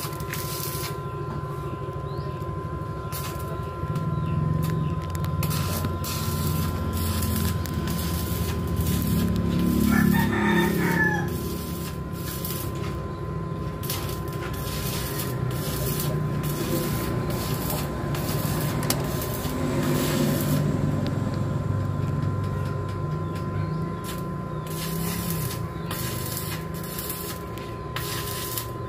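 A rooster crows once about ten seconds in, over a steady low hum with a thin high tone and scattered clicks and rustles of hands handling wires at a metal switch.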